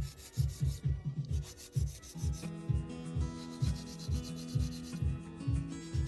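240-grit hand nail file rasping back and forth along the side walls of a long square gel nail extension, about three to four strokes a second, to straighten the sides.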